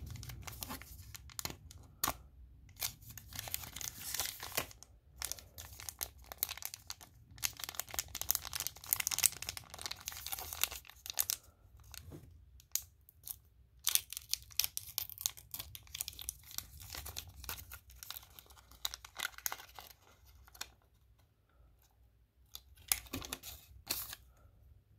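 Foil condom wrapper being crinkled and torn open by hand, a run of crackling tears and crinkles that thins out near the end, with one last short burst.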